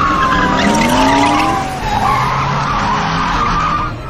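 Police car sound effect: a siren tone falling in pitch, once at the start and again near the end, over car engine and tyre noise.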